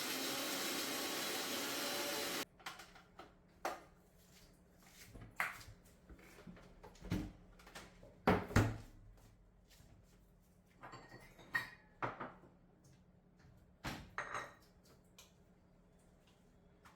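Electric mixer grinder (mixie) running steadily while grinding green chutney, cutting off abruptly about two and a half seconds in. Then scattered knocks and clinks of kitchenware, the loudest a little past eight seconds.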